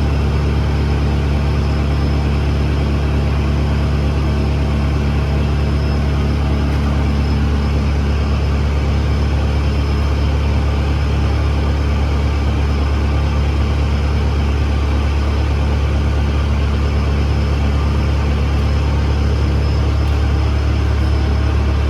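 Engine idling steadily, a loud, even, deep drone with no change in speed.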